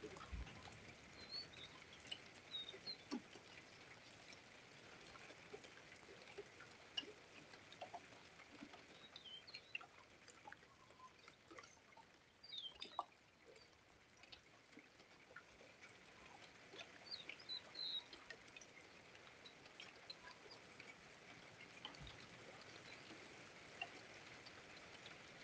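Near silence: faint outdoor ambience with a steady low hiss, scattered small high chirps from birds and a few soft ticks.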